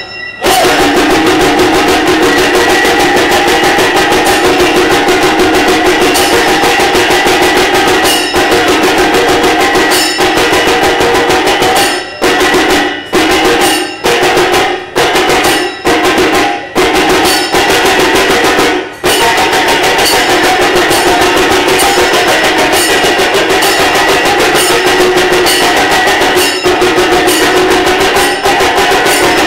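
Live folk-dance music: drum and percussion playing a dense, rapid, steady rhythm over held tones, with several short breaks in the sound in the middle.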